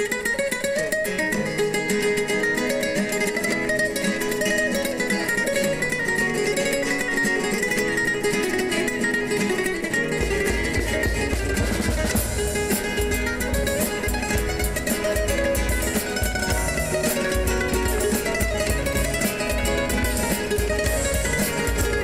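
Spanish guitars strumming and picking an instrumental opening to a Cádiz carnival comparsa's presentation. About halfway in, a deep low beat joins underneath.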